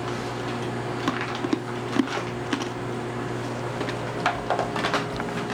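Microwave oven running with a steady hum, with scattered light clicks and rustles of food being handled and spread in a dish.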